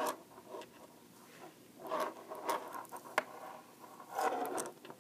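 Knitting needles clicking against each other and tapping on a table as yarn is purled, with soft scratchy rubbing of the yarn between a few sharp clicks.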